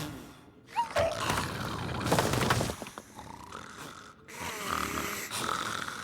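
Cartoon snoring sound effect: a loud snore heard three times, each lasting about a second, with short lulls between.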